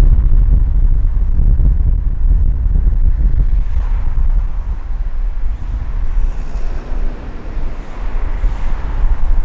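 Car driving on an expressway: a steady low rumble of road and wind noise, easing off about six seconds in and building again near the end.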